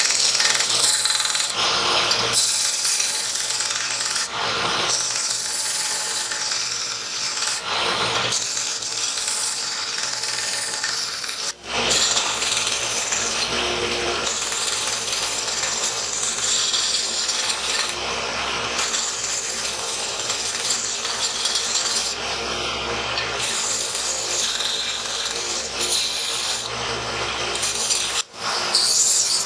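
Belt grinder running with a metal sword hand guard pressed against the belt, a steady abrasive grinding as the guard is ground clean of rust. The noise briefly cuts out twice, about a third of the way in and near the end.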